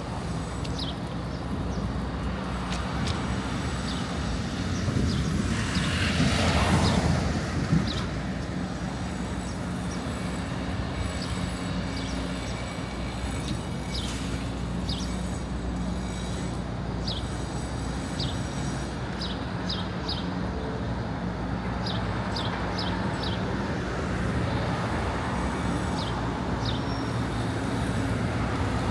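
City street traffic: a steady low engine hum, with one vehicle passing louder about six to seven seconds in. Short high chirps come and go throughout.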